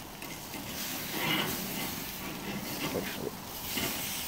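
T-bone steak sizzling over hot charcoal on a kettle grill: a steady hiss with a few faint ticks.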